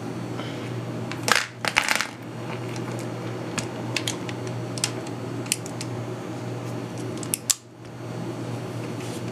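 .357 Magnum revolver being unloaded: a quick run of sharp metallic clicks and clinks about a second in as the cylinder is opened and the cartridges are ejected, then scattered single clinks of loose cartridges being handled, with a louder clink near the end.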